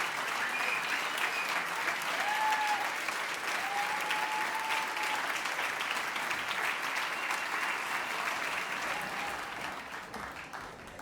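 Audience applauding, with a few whistles over the clapping; the applause dies away near the end.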